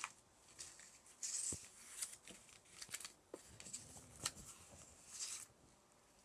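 Handling noise: a scattering of brief rustles and light clicks, the longest about a second in and another near the end.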